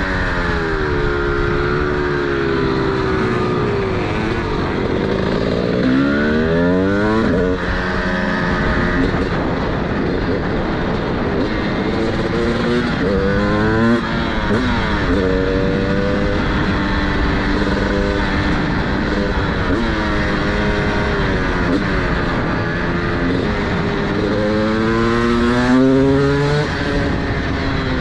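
A 2023 TM SMR 300 supermoto's single-cylinder two-stroke engine with a DBR exhaust, revving up and down. Its pitch climbs steeply three times, about a quarter of the way in, about halfway and near the end, and falls away in between.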